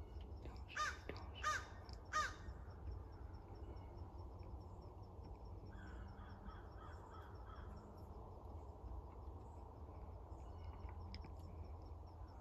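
A crow cawing three times, evenly spaced, about a second in, then a quicker run of fainter caws around six seconds in. A faint high ticking, about five a second, runs underneath.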